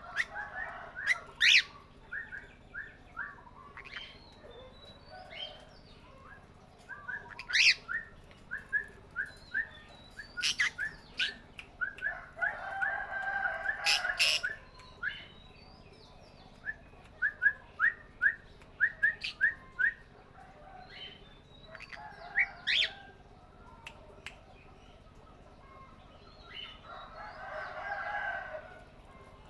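Small pet parrots chirping and calling. There are runs of short, quick chirps, sharp high calls, and two longer spells of raspy chatter, one in the middle and one near the end.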